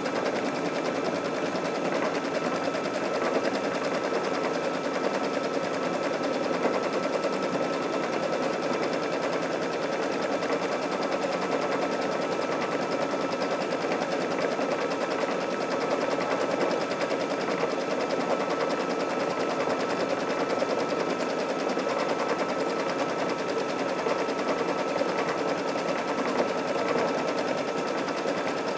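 Brother Luminaire embroidery machine stitching out a quilting pattern: a steady, rapid needle clatter with a thin steady whine under it.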